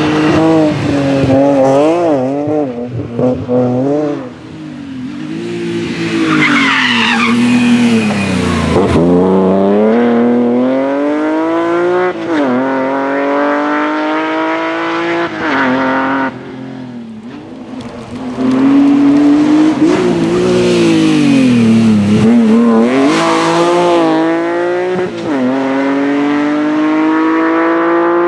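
A BMW rally car driven hard, its engine pitch climbing through each gear and dropping sharply at the shifts and lifts, with tyres squealing briefly twice, about a quarter of the way in and again near the end.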